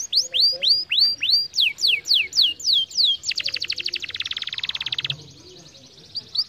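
Canary singing: a run of downward-sweeping whistled notes, about three a second, then a very fast trill lasting about two seconds. After a short lull, a new run of notes begins near the end.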